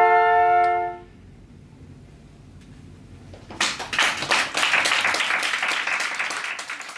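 Three flutes hold a final chord that stops together about a second in. After a short pause, the audience breaks into applause about three and a half seconds in.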